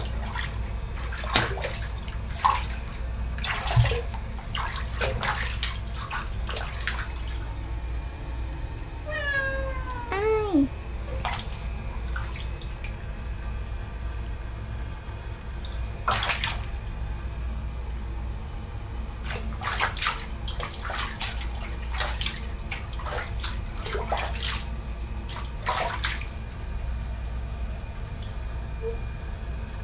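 Bathwater sloshing and splashing in a tub around a Maine Coon cat held in the water, in scattered bursts. About nine seconds in, the cat gives one long meow that falls in pitch.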